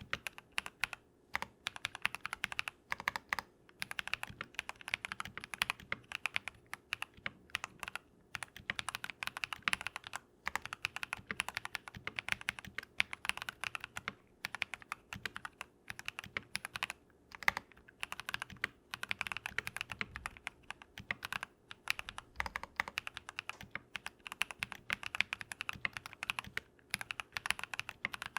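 Typing on a modded Keychron V1 mechanical keyboard with lubed Drop + Invyr Holy Panda tactile switches: fast runs of keystrokes broken by short pauses.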